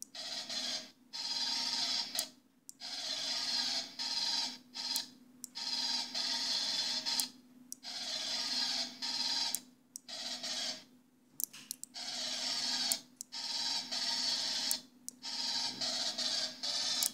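M41A pulse rifle firing sound effects played back by an Arduino prop sound board, in about a dozen short bursts of rapid fire, each under two seconds, with brief gaps between them. A steady low hum runs underneath.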